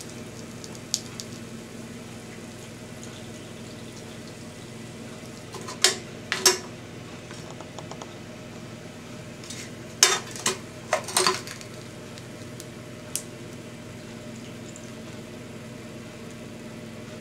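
Metal roasting tin and utensils clinking and clattering against the tray as hot fat is drained off the pork crackling: a few sharp clinks about six seconds in and a quick cluster around ten to eleven seconds, over a steady low hum.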